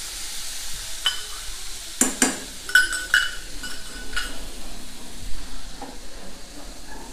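Masala corn sizzling in a hot kadhai with freshly added lemon juice while being stirred with a metal spoon. A run of sharp clinks of spoon on pan comes between about one and four seconds in.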